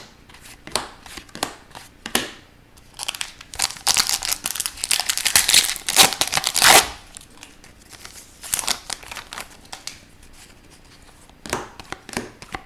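Foil wrapper of an Upper Deck hockey card hobby pack being torn open and crinkled. The loudest tearing and crinkling falls between about three and seven seconds in, with lighter rustles and clicks of card handling around it.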